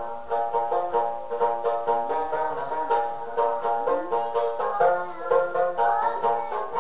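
Tibetan dranyen, a long-necked plucked lute, strummed in a quick, even rhythm of bright plucked strokes over ringing notes.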